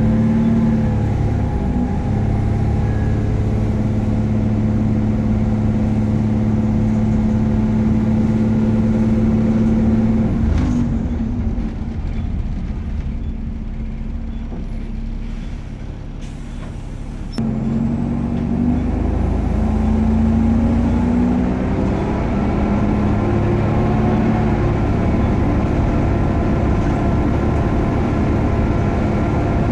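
Optare Versa single-deck bus engine under way, with a faint high whine, the sound behind its nickname "Hoover". About ten seconds in the bus comes to a stop with a short air-brake release and idles more quietly, then a few seconds later it pulls away with the engine note rising.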